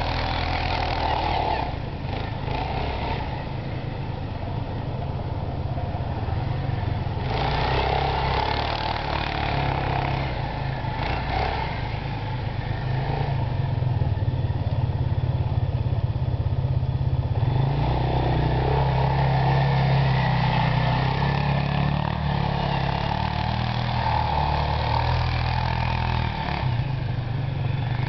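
TGB Blade 425 4x4 quad's engine running as it is ridden through snow, the revs rising and falling throughout.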